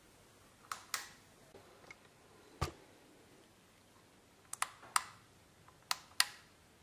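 About eight short, sharp clicks and light knocks at irregular intervals from hands working the pillar drill's fittings and controls. The drill motor is not running.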